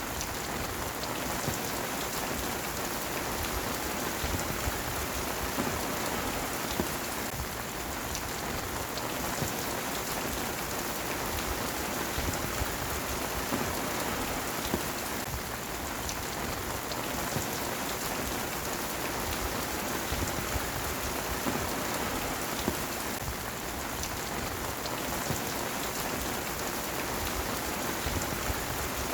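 Heavy rain falling steadily, a dense even hiss with scattered sharper drop hits.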